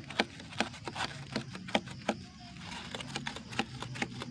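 Squid and fish grilling, with sharp, irregular crackles and pops several times a second over a steady low hum.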